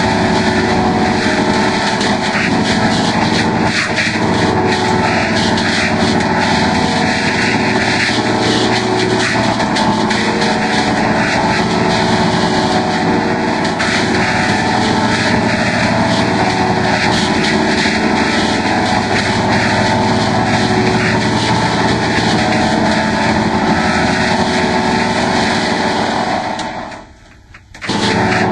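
Ten copies of a Fisher-Price Laugh & Learn puppy toy's electronic voice and music layered on top of one another and heavily distorted by audio effects. The result is one loud, dense wall of steady tones and noise that cuts off abruptly near the end.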